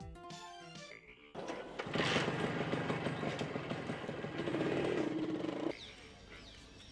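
Motorcycle engine starting up and running with a rapid, even firing beat for about four seconds, then cutting off suddenly. A few music notes come just before it.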